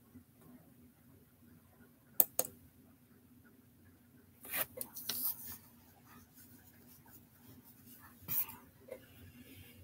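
A few sharp clicks and handling rustles at a desk over a faint steady hum. A quick double click comes about two seconds in, a cluster of clicks and rustling about halfway through, and one more rustle near the end.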